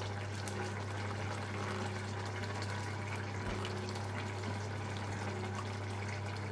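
Saucepans of vegetable curry simmering on an electric hob as a wooden spoon stirs through one of them, over a steady low hum.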